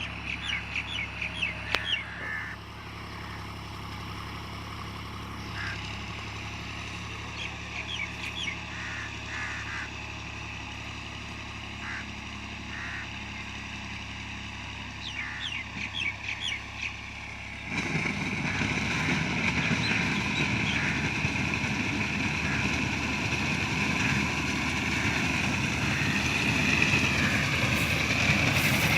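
Farm machinery engine running steadily, with short bird calls repeating over it. About 18 seconds in, a louder machine noise starts and grows steadily toward the end.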